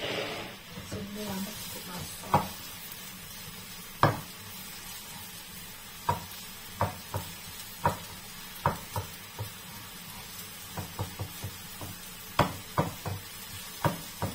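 Sliced mushrooms frying in oil in a frying pan: a short sizzle as the last of them go in at the start, then a spatula tapping and scraping against the pan in irregular sharp clicks as they are stirred.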